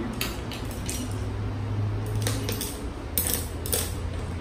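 Chopsticks and a spoon clinking against a hot pot and dishes: several short, light taps, over a steady low hum.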